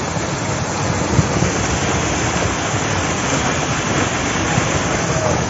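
Floodwater rushing in a steady, unbroken rush with no letup.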